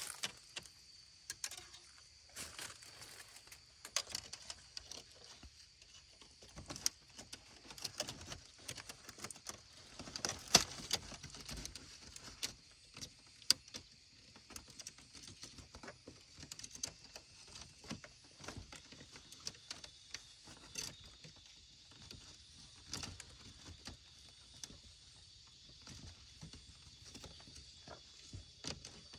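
Scattered light clicks and taps at an irregular pace, a few louder knocks among them, with a steady high-pitched insect drone underneath.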